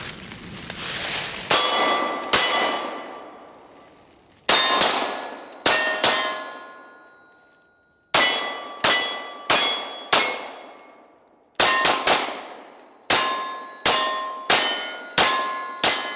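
A string of shots from a Heckler & Koch USP 9mm pistol striking steel plate targets. Each hit lands as a sharp clang that rings briefly. There are about fifteen hits in uneven bursts, with short pauses between strings.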